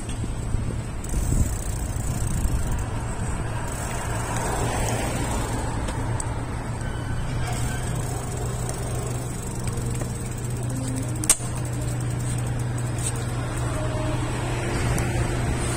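City street ambience: car traffic on the road under a steady low hum, with one sharp click about eleven seconds in.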